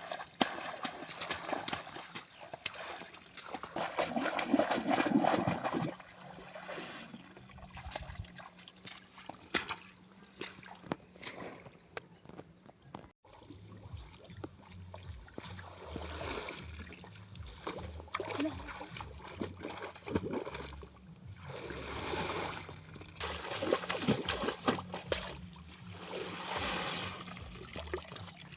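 River water splashing and sloshing in irregular bursts, with a loud stretch of splashing about four to six seconds in.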